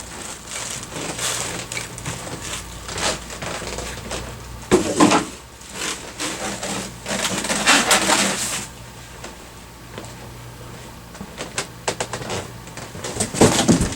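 Unboxed equipment and packaging being handled and moved: irregular knocks, scrapes and rustles, loudest about five seconds in, around eight seconds, and near the end.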